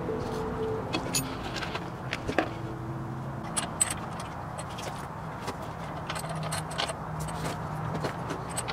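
Scattered metallic clinks and rattles of hand tools working on a motorcycle's rear axle and chain adjuster.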